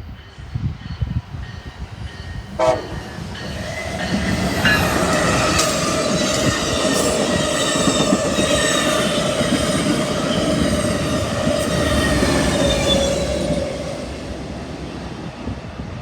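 Diesel locomotive horn sounding a chord of several notes: it comes on with a short rising sweep about three seconds in and then holds steady for about ten seconds before fading, over the rumble of the passing train.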